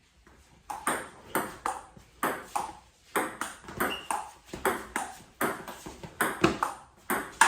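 A table tennis rally: the celluloid ball clicking against paddles and the table about three times a second. It starts with the serve about half a second in and keeps going in a steady back-and-forth rhythm.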